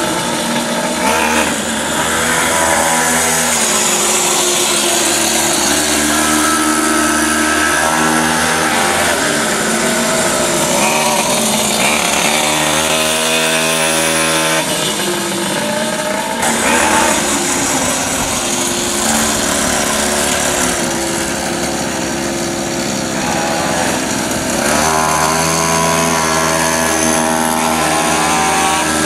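Mini quad bike's small two-stroke engine running, its pitch rising and falling repeatedly as the throttle is opened and eased.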